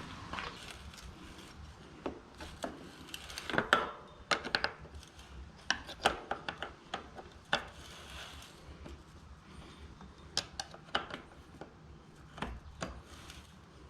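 Irregular clicks and light knocks, with some rubbing, from a Shimano Hollowtech bottom bracket cup being threaded into the frame and worked with a bottom bracket wrench. The loudest cluster of knocks comes about four seconds in.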